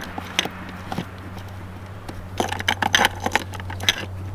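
A garden hose's brass fitting being hand-threaded onto a travel trailer's plastic city-water inlet: scattered light clicks and scrapes, with a quick run of them from about halfway through. A steady low hum runs underneath.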